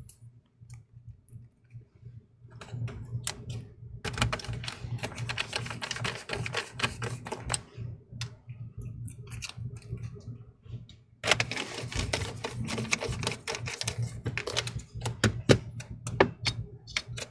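Rapid small clicks and taps of fingers handling and pressing the plastic and metal fan assemblies inside an open laptop. They come in clusters with short pauses, over a low steady hum.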